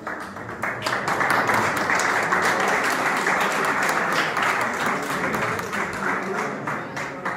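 Audience applauding: dense clapping that swells about a second in and tapers off near the end.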